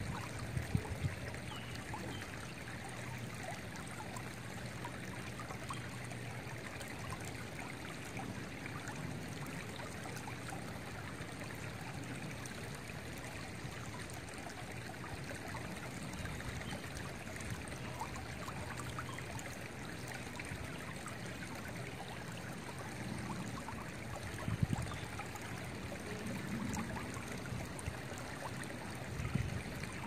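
Shallow creek flowing over rocks and a small riffle: a steady, even rush of rippling water.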